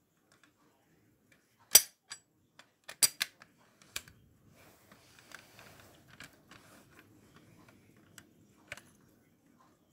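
Sharp clicks and taps of a 1/18-scale Mercedes-Benz 300SL model car being handled and turned over, its parts knocking. The loudest click is nearly two seconds in, then a quick cluster around three seconds, with soft rustling of the cloth beneath it in the middle.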